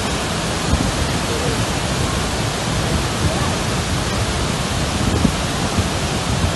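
Niagara's Horseshoe Falls heard close to its base: a steady, loud rush of falling water and spray.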